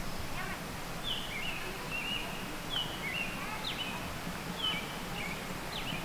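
A songbird giving a string of short chirping notes, about one or two a second, over a steady background hiss of outdoor ambience.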